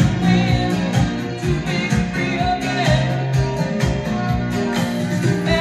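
A vinyl record playing back on a Micro Seiki MB-12 turntable: a song with singing and guitar over a steady beat.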